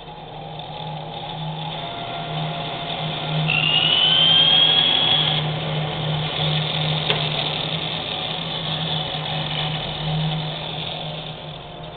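Bandsaw running with a steady hum while its blade cuts through a wooden peg blank fed on a plywood cutoff sled. The sound swells during the cut, with a high whine rising in pitch about four seconds in; there is a sharp click about seven seconds in, and the sound fades near the end.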